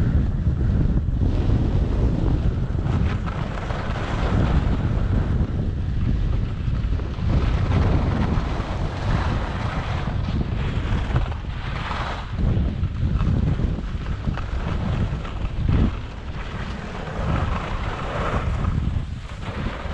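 Wind rushing over the microphone of a camera carried by a skier moving downhill, with the hiss of skis sliding on the snow swelling and fading several times.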